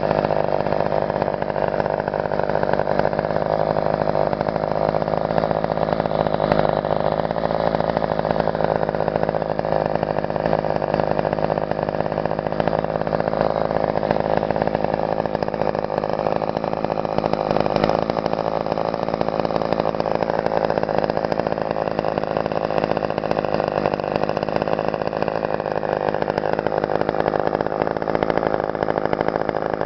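Craftsman 38 cc (2.3 cubic inch) two-stroke chainsaw engine idling steadily.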